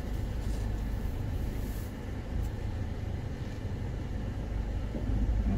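Steady low rumble of a Toyota Rush heard from inside the cabin while it moves slowly forward in drive: engine and road noise.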